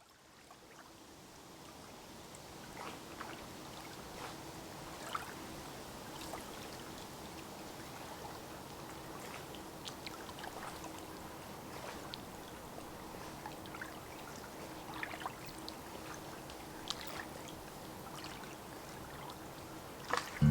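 Faint moving water with many small scattered splashes and drips, fading in over the first couple of seconds.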